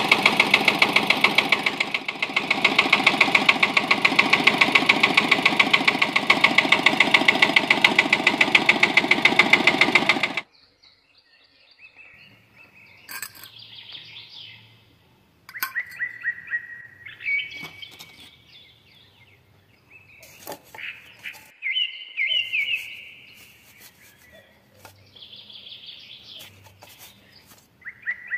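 A small electric motor runs with a loud, fast rhythmic buzz and cuts off sharply about ten seconds in. After that, birds chirp on and off against quiet outdoor background.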